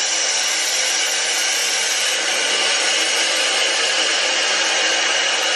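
Shower running: a steady, even hiss of spraying water.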